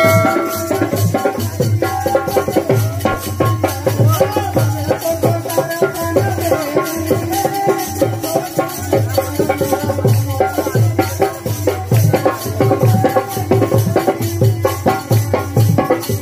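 Live Hindu devotional music (bhajan) played loud through PA loudspeakers: a singing voice over harmonium with a steady drum beat heavy in the bass.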